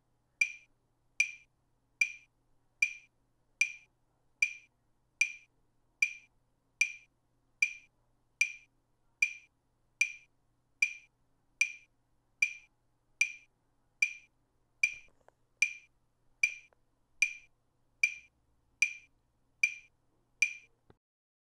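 A metronome-style click track: short, sharp ticks at a steady tempo of about five every four seconds. They stop about a second before the end.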